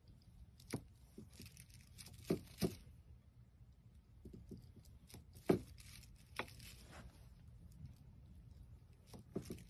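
A wooden-handled knife slicing a block of Spam on a wooden cutting board: several sharp knocks as the blade goes through onto the board, the loudest about five and a half seconds in, with the plastic wrap under the meat crinkling.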